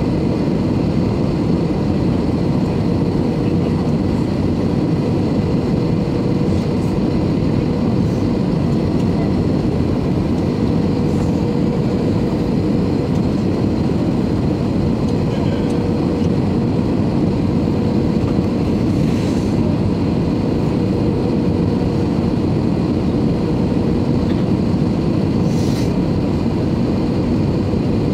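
Steady cabin noise of an Airbus A320-214 airliner on final approach, heard from a seat over the wing: a constant deep rush of airflow and CFM56 engines, with a faint steady hum running through it.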